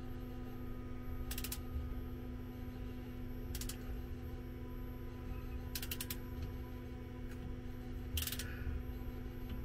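Ratcheting torque wrench tightening a machine vise onto a tiny part held in soft jaws: four short bursts of ratchet clicks about two seconds apart, over a steady hum. The clamping force at the wrench's lowest 5 ft-lb setting is enough to crush the small part.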